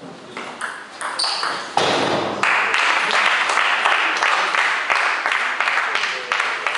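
Table tennis ball clicking off bats and table in a quick rally for under two seconds, then spectators clapping for about four seconds after the point ends.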